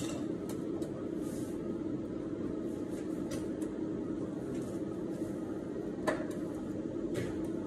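A steady hum, with a few light clicks and knocks, the sharpest about six seconds in.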